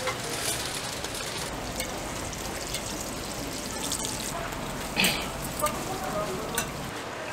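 Hotteok (Korean sweet pancakes) frying in shallow oil on a flat steel griddle, a steady sizzle. A metal spatula clicks and scrapes against the griddle as the pancakes are turned, the sharpest click about five seconds in.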